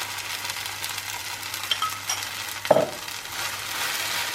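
Vegetable filling sizzling in a pan as it is stirred, with a cornstarch-and-water mixture just poured in to bind it together. A few light clinks come a little under two seconds in, and a single sharp knock comes near the three-second mark.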